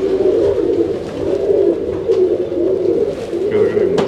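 Several domestic pigeons cooing at once, their low, wavering coos overlapping into a continuous chorus, with a sharp click near the end.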